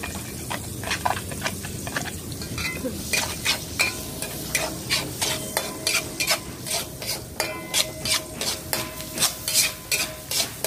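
Minced garlic sizzling in hot margarine in a metal wok while a spatula stirs and scrapes the pan. The scraping strokes come quickly, about two to three a second, from about three seconds in.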